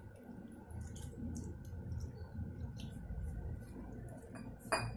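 Water poured from a small steel cup onto spice powder in a steel bowl, then fingers kneading it into a wet masala paste: faint squishing with scattered light clicks.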